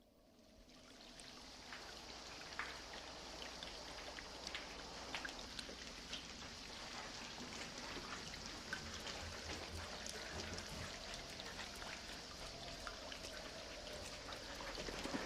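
Water trickling and dripping, with many scattered small drips. It fades in over the first couple of seconds, then runs on steadily.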